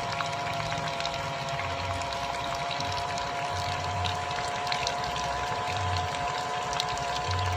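Miniature water pump driven by a small salvaged DC motor, running with a steady whine while water pours and splashes.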